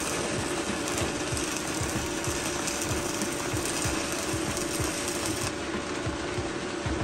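Electric welding arc crackling and buzzing steadily as a bead is laid.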